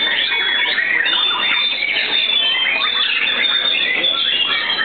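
Many caged white-rumped shamas singing at once: a dense, unbroken chorus of overlapping whistles and chattering phrases.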